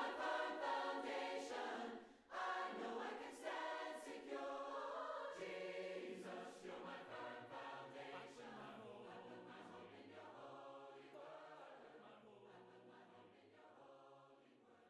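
Choir singing, with a short pause about two seconds in, then slowly fading out.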